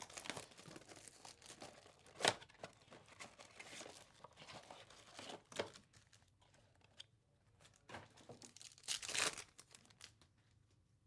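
Plastic shrink wrap and foil card packs of a 2024 Topps Chrome baseball blaster box being torn open: irregular crinkling and rustling, with a sharp rip about two seconds in and a longer, louder tearing burst near the end.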